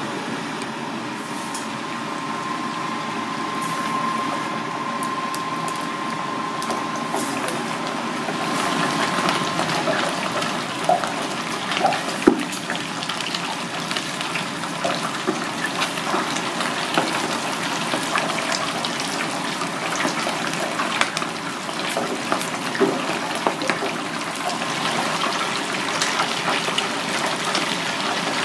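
Floured whole fish deep-frying in a fryer of hot oil: steady sizzling and bubbling with scattered crackles and pops, which grow busier and louder from about eight seconds in.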